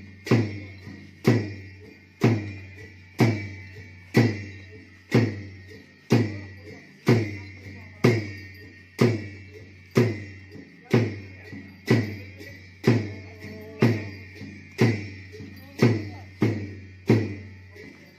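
Dance drumming: a large drum struck at a steady pace of about one heavy stroke per second, each followed by one or two lighter strokes, over a steady ringing high tone.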